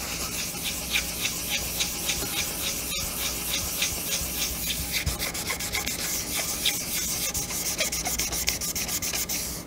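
Sandpaper worked by hand, under the fingers, over the painted surface of a motorcycle gas tank, in rapid, even back-and-forth strokes that quicken toward the end. It is scuff-sanding the gloss paint down to an even dull finish so that sealer will adhere.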